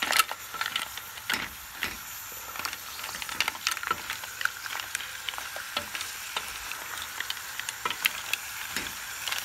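Mussels in their shells being stirred with a wooden spatula in a pot, the shells clicking and clattering irregularly against each other and the pot, the loudest clack just after the start, over a steady sizzling hiss as they sauté.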